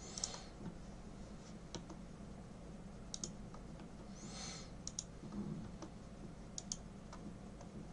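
A few scattered light clicks of a computer mouse and keyboard over a low steady hum, with a short soft hiss about four seconds in.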